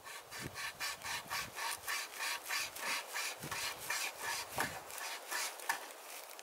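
A flexible pocket saw, pulled back and forth by a ring handle in each hand, cutting through a thin wooden pole. The strokes rasp evenly, about three a second, and stop near the end.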